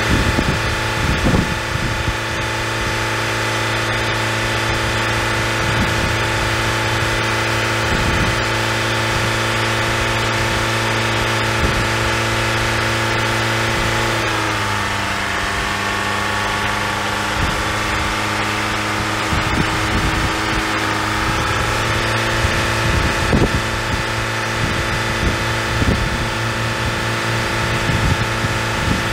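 Car engine idling steadily while it jump-charges a dead semi truck's batteries through jumper cables. Its pitch drops slightly about halfway through and comes back up a few seconds later; low thumps of wind on the microphone come and go.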